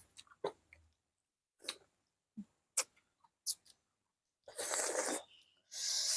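Close-up eating sounds: scattered sharp mouth clicks and smacks, then two breathy bursts of about a second each near the end.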